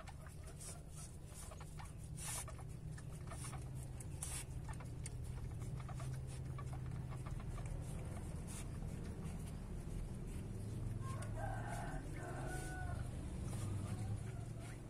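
A chicken clucking from about eleven seconds in, with a short pitched call. Underneath are a low steady hum and a few faint clicks early on.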